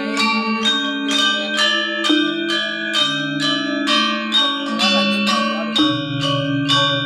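Balinese gamelan ensemble playing: bronze metallophones struck about twice a second, each stroke ringing on over shifting lower melody tones. A deeper, pulsing low tone joins about six seconds in.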